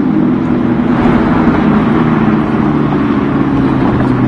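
Car engine running steadily, a low hum with a rushing noise over it.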